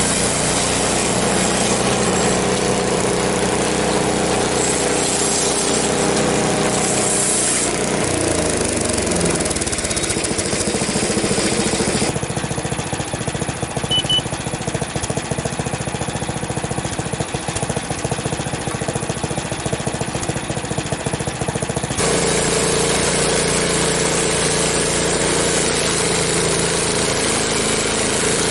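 Frontier OS23 portable bandsaw sawmill running under its small gasoline engine, milling an ash log. The engine's steady note changes character several times, turning rougher about twelve seconds in and smoothing out again near the end.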